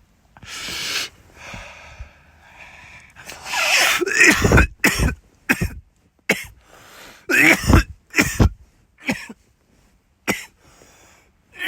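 A man's fit of harsh, wheezy coughing from smoking a joint. It starts with a long breathy hiss and breaks about three seconds in into a string of hacking coughs that keeps going for several seconds.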